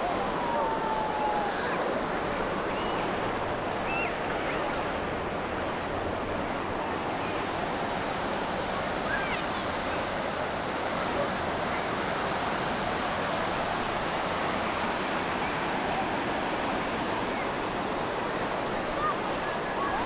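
Surf breaking steadily on a sandy beach, a constant wash of wave noise.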